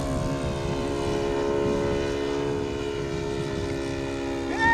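Engine of a radio-control Sopwith Pup model biplane running at a steady pitch. A short high chirp comes near the end.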